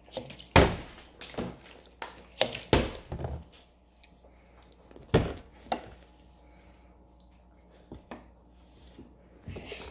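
Partly filled plastic water bottle being flipped and thudding onto a wooden tabletop: a sharp thunk about half a second in, followed by several smaller knocks, with more thuds around five seconds and near eight seconds.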